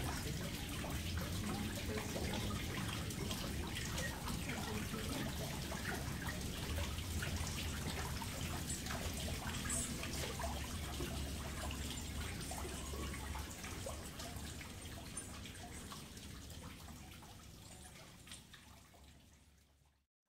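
Water trickling and dripping into a shallow garden pond, a steady trickle with small drips, fading away over the last few seconds.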